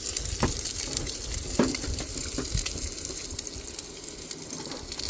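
Rain pattering steadily on tent fabric as a fine hiss, with a few light knocks.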